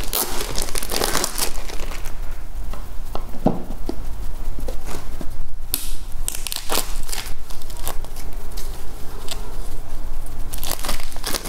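Clear plastic wrapping crinkling and tearing as it is pulled off a water filter cartridge by hand, with irregular sharp crackles throughout.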